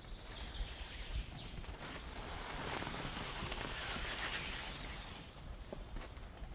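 Footsteps on a wet forest path, with a small bird singing a repeated stepped phrase in the first second or so. Then a swell of rustling through the trees rises and fades over about three seconds.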